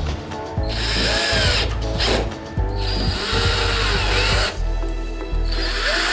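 Daewoo cordless drill-driver running in three short bursts, driving screws into plastic wall socket and switch bases, with background music underneath.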